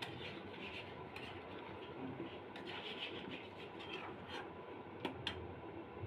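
Scraping and rubbing of kitchen food preparation, with a few sharp clicks: once about a second in and twice near the five-second mark.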